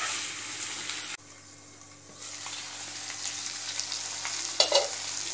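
Chicken pieces and chopped tomato sizzling in butter in a nonstick frying pan while a spatula stirs them. The sizzle drops away abruptly a little over a second in and comes back about a second later, and there is a sharp knock near the end.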